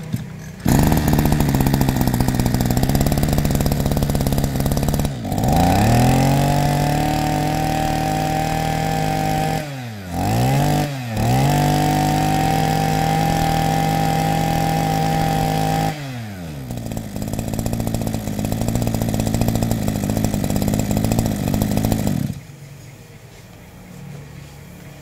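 Small two-stroke engine of a Maruyama AC23S brush cutter, pull-started and catching within a second. It idles, is revved up and held at high revs twice with a quick throttle blip between, drops back to idle, and is switched off near the end.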